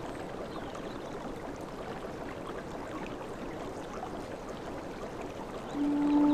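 Steady wash of sea water, an even rushing with no distinct waves. Near the end a sustained low flute note comes in over it.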